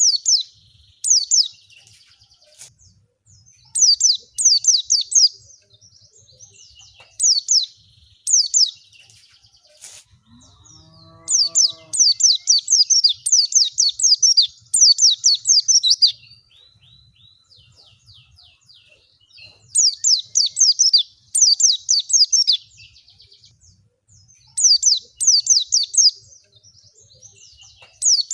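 White-eye (pleci) singing: bursts of rapid, high, down-slurred chirping notes come every few seconds, with one longer run of song about twelve seconds in.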